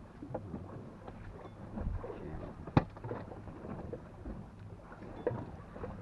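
Quiet sounds of a small wooden fishing boat at sea: water lapping against the hull and scattered faint knocks of gear, with one sharp click a little under three seconds in.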